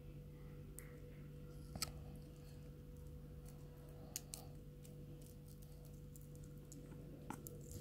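Faint, scattered clicks and taps of fingernails on a small plastic miniature cup-noodle toy as it is handled and its lid peeled back, over a steady low electrical hum.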